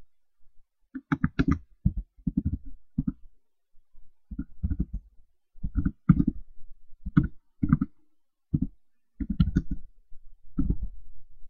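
Computer keyboard being typed on in short bursts of several keystrokes each, with brief pauses between the bursts, as a line of text is entered.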